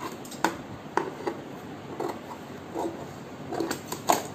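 Large tailor's scissors snipping through stiff buckram interfacing: a series of short, sharp snips at an uneven pace, the loudest near the end.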